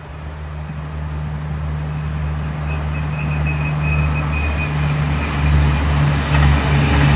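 A pair of DB class 611 tilting diesel railcars approaching, the diesel engines' drone growing steadily louder and beginning to pulse near the end. About three seconds in a thin high squeal sets in for about three seconds; the owner finds it does not sound like flange climbing at the curve exit and does not know its cause.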